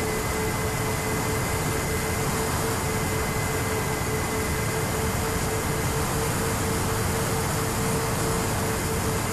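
Twin SunnySky 2212 brushless electric motors of a Sonicmodell Binary RC plane running at steady cruise power: a constant motor whine under heavy wind rush over the onboard camera.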